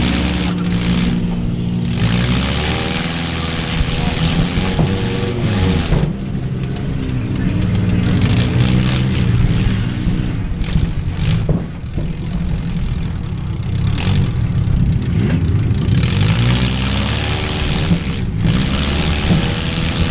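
Demolition derby vans' engines revving hard and rising and falling in pitch, with a few sharp bangs of vehicles colliding.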